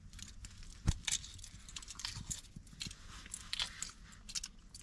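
Shell of a hard-boiled egg being cracked and peeled by hand: irregular small crackles and crunches of breaking shell, with one louder knock about a second in.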